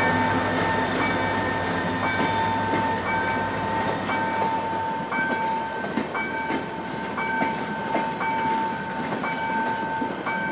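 Passenger coaches rolling past a level crossing, wheels clicking over the rail joints. The crossing's warning signal sounds throughout, a steady tone with a beep repeating about once a second. A low rumble fades out about halfway through.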